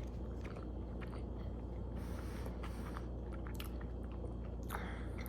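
Close-up mouth sounds of someone chewing a bite of cheeseburger: soft, scattered wet clicks and smacks over a faint steady low hum.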